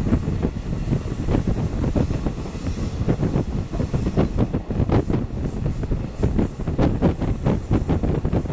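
Train wheels running on the rails, heard from inside the carriage at the window: a steady low rumble with a quick, uneven series of wheel clicks that comes thicker from about three seconds in.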